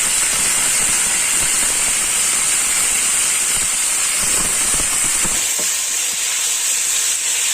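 Mutton pieces frying in hot oil: a loud, steady sizzling hiss as the oil bubbles around the meat. The lower crackle eases off about five and a half seconds in.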